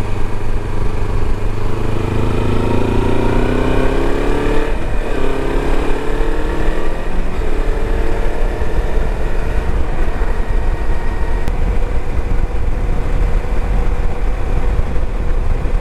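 Kawasaki Versys-X 300's parallel-twin engine under way on the road, rising in pitch as it accelerates, dipping briefly about five seconds in, then rising again and settling to a steady cruise. Heavy wind rumble on the microphone underneath.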